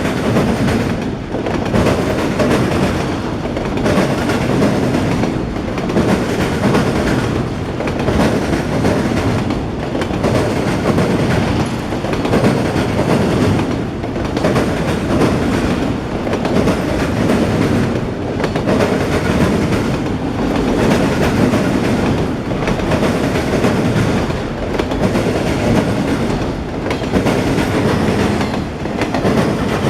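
CSX freight train of autorack cars rolling past, wheels clacking over the rail joints. The noise dips briefly about every two seconds as each car goes by.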